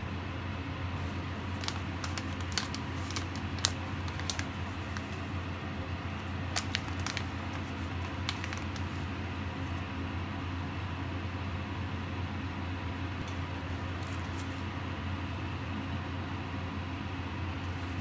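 A steady low machine hum with hiss throughout, under a scatter of small clicks and crinkles through the first half: a metal spoon and a plastic spice bag being handled while tandoori powder is spooned onto chicken pieces in a plastic bowl.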